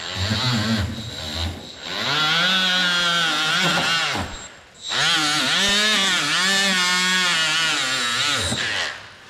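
Electric power tool motor running in spurts, its pitch wavering up and down as it is loaded and eased off, with a steady high whine. It stops briefly about halfway through and again near the end.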